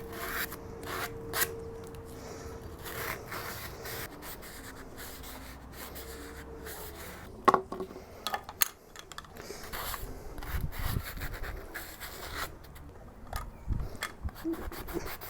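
Cut edges of PVC pipe being sanded by hand, deburring them: irregular rubbing and scraping strokes, with a sharp knock about halfway through.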